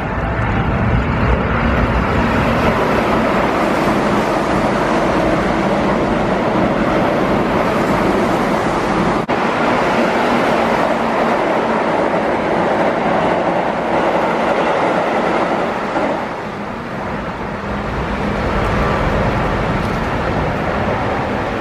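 Keihan electric trains, 8000 series among them, running through stations: a steady rumble of wheels on rail and running gear. The sound changes abruptly about nine seconds in and again near sixteen seconds, as one train gives way to the next.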